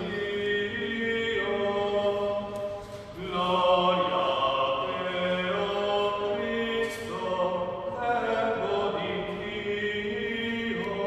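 Voices singing the Gospel acclamation in slow, sustained phrases, with short breaths about three and seven seconds in.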